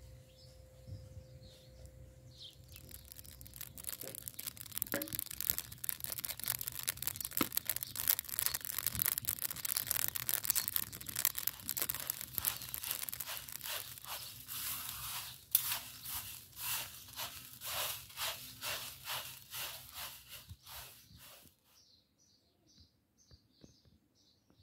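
Rice grains being stirred and toasted in a large metal pan with a wooden spatula, giving a dry rustling, scraping hiss. It begins a couple of seconds in and settles into steady strokes about twice a second, then stops near the end, leaving faint bird chirps.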